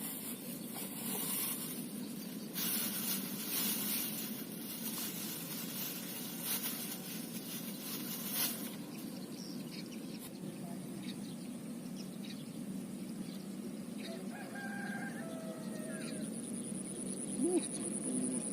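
A rooster crows once, faintly, about fourteen seconds in, over a steady low outdoor background with a high hiss during the first half.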